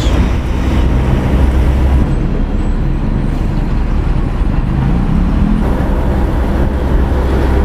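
Bus engine and road noise heard from inside the moving bus's cabin, a steady low rumble. The engine note rises about four seconds in.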